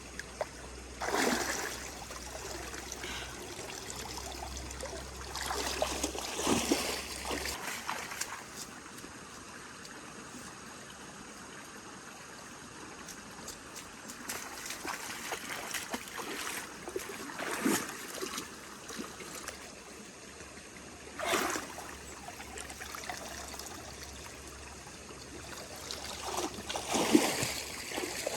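Floodwater flowing steadily, with splashes every few seconds.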